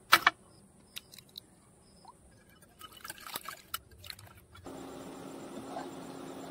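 An egg cracked with two sharp taps on the rim of a glass bowl, then a wire whisk clicking against the glass as the egg is beaten. Near the end a steady hum and hiss from the pan on the stove takes over.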